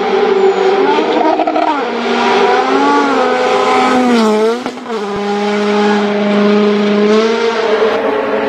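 Rally car engine revving hard at speed, its pitch rising and falling with throttle and gear changes, dropping sharply about halfway through, then holding high and steady for a couple of seconds.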